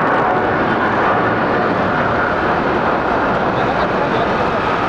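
ANA Boeing 777-300ER climbing out just after takeoff, its two GE90-115B turbofan engines at takeoff power in a loud, steady jet roar with a faint whine in it.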